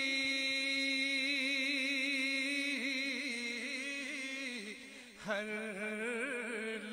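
A man singing a naat, holding one long wavering note for about four and a half seconds before it falls away; after a short breath he starts the next line.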